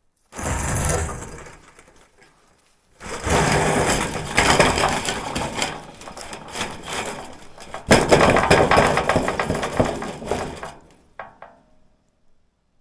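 Rough crunching, scraping and cracking of material being handled. It comes in three long stretches, the second starting about three seconds in, and a sharp crack opens the third about eight seconds in.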